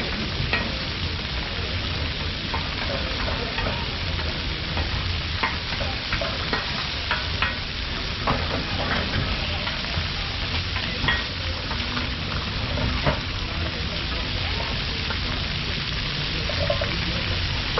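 Chicken pieces sizzling steadily on a large flat-top griddle, with metal tongs and a spatula clicking and scraping on the hot plate every so often.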